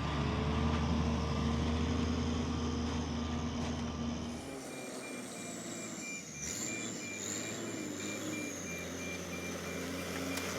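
Truck engine running steadily as it arrives and backs up, its reversing alarm beeping in an even repeating pattern from about halfway through.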